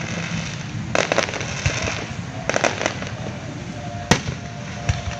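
Aerial fireworks shells bursting as sharp bangs over steady background noise: two about a second in, a quick cluster of several around two and a half seconds, and the loudest single bang about four seconds in.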